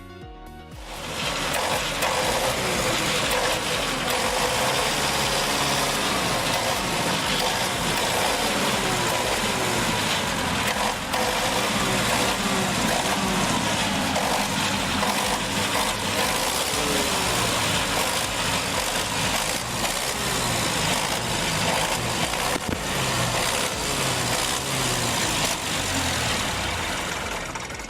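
Diesel engine of a 1989 welding generator set running steadily. It starts about a second in and stops just before the end.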